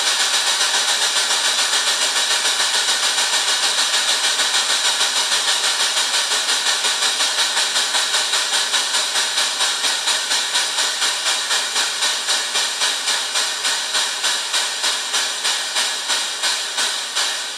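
MRC Sound Generator 8000 playing simulated steam-locomotive chuffing through its speaker: a steady, hissy chuff that slows gradually, from about five beats a second to about two and a half, and grows a little quieter as the HO-scale steam engine slows down.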